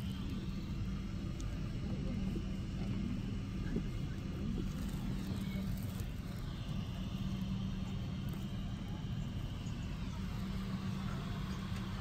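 Steady cabin hum inside a Boeing 777-200 airliner: air-handling noise with a constant low drone.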